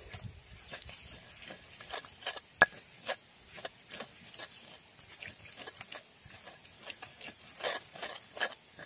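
Stone pestle (ulekan) grinding peanut sauce in a stone mortar (cobek): irregular wet squelching and scraping with small knocks of stone on stone, and one sharp knock a little over two and a half seconds in. The paste is being worked smooth with a little water added.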